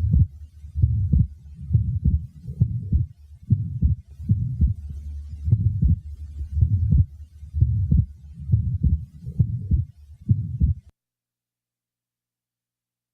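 Human heart sounds from a patient with an atrial septal defect: a murmur leading into a widely split second heart sound that stays fixed, not varying with breathing. The repeating low beats stop suddenly about eleven seconds in.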